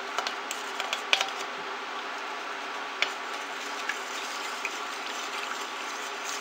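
Plastic spatula stirring borax powder into hot water in a stainless steel pot, with scattered light ticks and scrapes against the pot, over the steady hum of an induction cooker.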